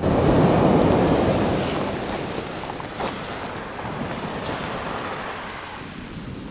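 Surf breaking and washing on a shingle beach, with wind on the microphone; loudest at the start, then fading over the next couple of seconds.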